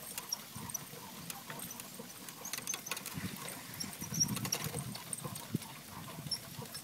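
Two harnessed dogs trotting on a dirt road while pulling a sulky, their paws padding unevenly and the cart's shafts and harness clips rattling and knocking.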